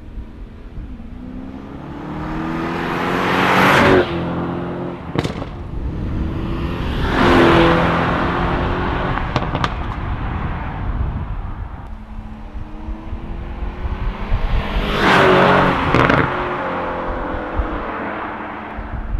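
Mercedes-AMG E 63 S twin-turbo V8 with an Armytrix aftermarket exhaust revving hard three times, each rev climbing to a peak and dropping back. Sharp cracks from the exhaust follow the first two revs.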